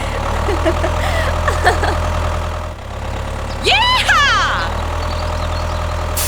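A small engine running steadily at idle, with brief high squeaks in the first two seconds and a loud rising-then-falling voice-like cry about four seconds in.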